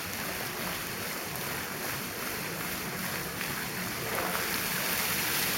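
Fountain water jets splashing onto a wet stone floor, a steady rushing wash that grows a little louder near the end.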